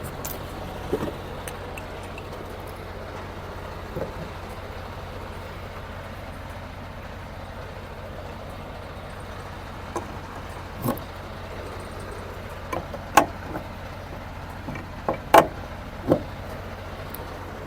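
Semi truck's diesel engine idling steadily, with a handful of short sharp clicks and knocks scattered through.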